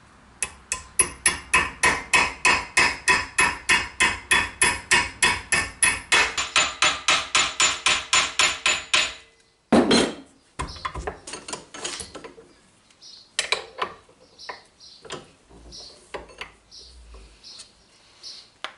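A small hammer peening over a rivet through a metal ring on a bolt held in a bench vise, a quick, even run of light metallic strikes at about four a second. The run stops after about nine seconds, followed by one louder knock and then scattered small clicks and taps.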